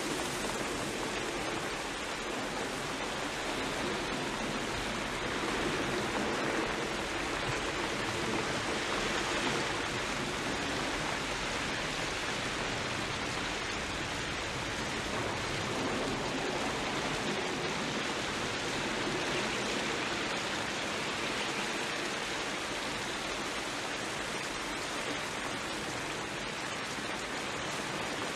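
Heavy rain pouring steadily on a car, a continuous even hiss that does not change.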